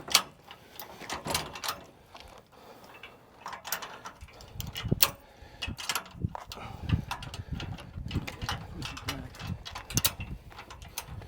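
Metal trailer hitch hardware clicking and clunking at irregular intervals, with low thuds from about four seconds in, as a trailer is tried on the newly fitted 2-inch hitch ball.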